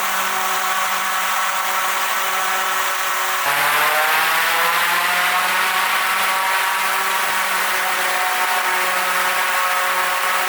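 A motor-driven fan running steadily, its hum under a rushing hiss of blown air, making artificial wind for a strong-wind test. About three and a half seconds in its speed changes: the pitch dips, climbs back, and the rush of air grows louder.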